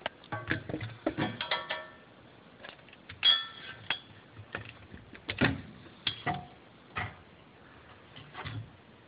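Scattered light clinks, taps and knocks of metal parts and tools being handled under a car while a new fuel filter is fitted to its line. A few of the clinks ring briefly, the loudest about three seconds in.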